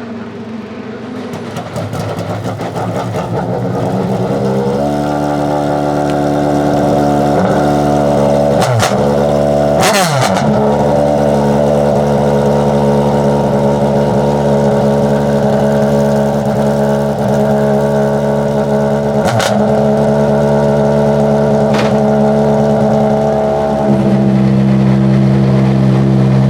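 Mercedes-AMG C63 DTM race car's 4.0-litre V8 running while warming up, rough and uneven for the first few seconds before settling into a steady note at constant revs. It dips briefly a couple of times, with a sharp crack about ten seconds in and fainter ones later.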